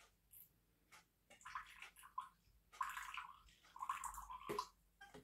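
9% table vinegar poured from a plastic bottle into a small glass, splashing in three short pours.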